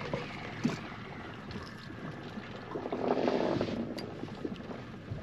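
Wind and water noise on a small boat at sea: a steady rushing hiss that swells for a moment about three seconds in.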